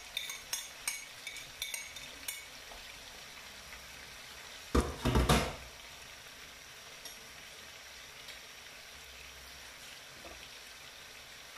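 A metal spoon taps and scrapes against a plate in a quick run of light clinks, knocking ginger paste off it into the pot. About five seconds in come two loud knocks, then a faint steady sizzle of the chicken cooking in the pot.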